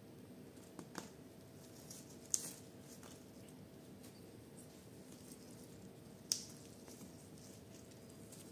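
Faint handling sounds of gloved hands tying bougainvillea stems to a coir pole with plant tie wire. Two sharp high clicks come about two and six seconds in, over a faint steady hum.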